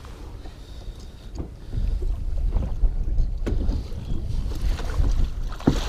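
Wind buffeting the microphone, louder from about two seconds in, over water lapping against a small boat. A few sharp clicks and knocks come from handling the landing net and the lure's hooks.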